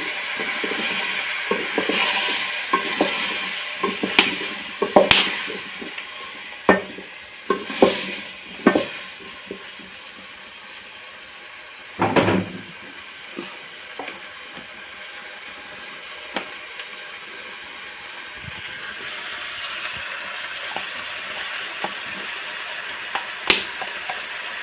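Tomatoes sizzling in a cooking pot while a spoon stirs, clicking and scraping against the pot many times in the first nine seconds. About twelve seconds in there is one louder knock, then a steady sizzle with only a few clicks.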